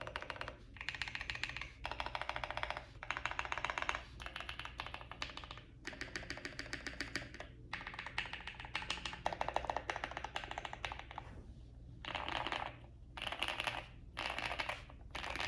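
Fast typing on a custom 65% mechanical keyboard: an aluminum Tofu65 case with a polycarbonate plate, lubed and filmed NovelKeys Cream linear switches, foam dampening and GMK keycaps. The keystrokes come in quick runs of one to two seconds, each separated by a short pause.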